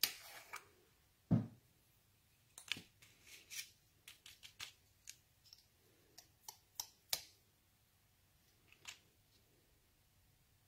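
Faint scattered clicks and light taps of small plastic craft items being handled on a tabletop, with a soft knock about a second in, as the lid comes off a pot of white embossing powder and a cardstock strip is dipped in it.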